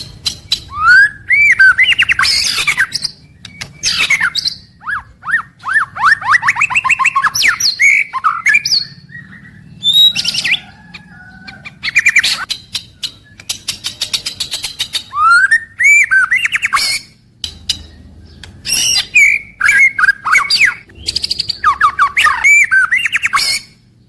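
White-rumped shama (murai batu) singing loud, varied phrases: rapid clicking rattles mixed with quick rising and falling whistled notes, with short pauses between phrases.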